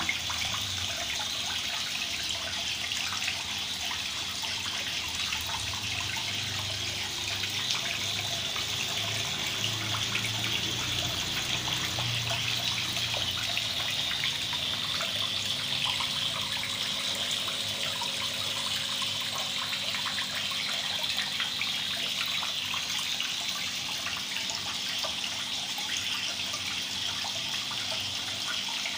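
Water pouring steadily from a barrel filter's outlet pipe into a shallow fish pond, splashing on the surface.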